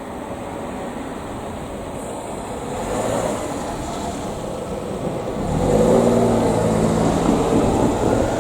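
Diesel railcar engine drawing near, its engine note coming in and growing louder about five and a half seconds in.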